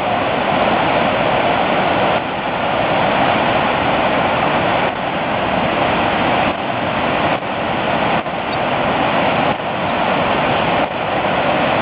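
Loud, steady rush of Niagara's American Falls: water pouring over the brink and crashing onto the rocks below.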